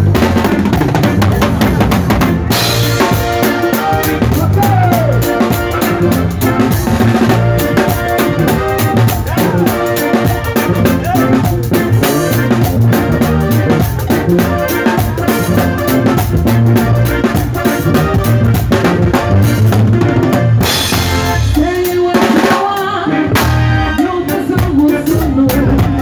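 A live band jam driven by an acoustic drum kit played in a busy groove, with snare, kick and cymbal strokes over bass guitar and keyboard. Around three-quarters of the way through, the low end drops out briefly before the full groove returns.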